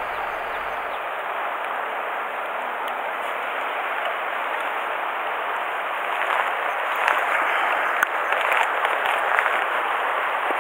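Steady rushing hiss of river water running over a gravel bed, growing a little louder about halfway through, with a few faint clicks near the end.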